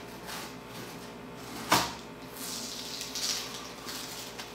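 Cardboard mailer envelope being slit open and handled: scraping and paper rustling, one sharp snap just under two seconds in, then rustling as the cardboard contents are slid out.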